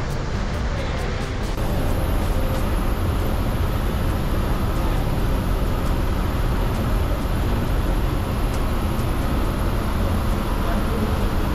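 Steady engine drone and road noise heard from inside a moving MSRTC 'Lal Pari' state transport bus on a wet highway, getting a little louder about a second and a half in.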